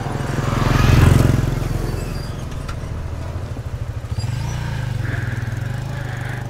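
Motorcycle engine running close by, swelling to its loudest about a second in as it passes, then running on at a steadier, lower level.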